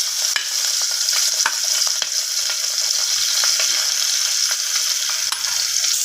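Sliced onions sizzling steadily in hot oil in a pressure cooker, with scattered light clicks of a spoon stirring them against the pot.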